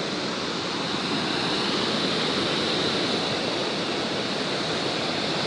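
Floodwater pouring over an overflowing dam spillway: a steady rush of falling water.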